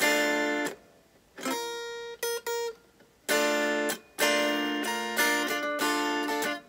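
Electric guitar played clean: a D minor chord rung out, then a few single high notes picked on the top string, then chords strummed again, struck several times in quick succession near the end.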